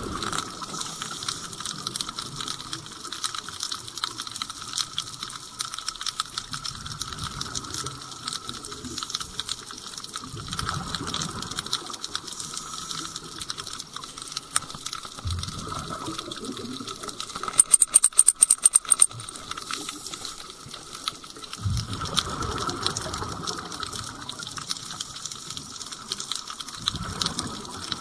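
Underwater scuba breathing: recurring bursts of bubbling rumble every few seconds from a diver's regulator exhaust, over a continuous fine crackling and clicking. About two-thirds of the way in comes a quick run of about ten loud sharp clicks.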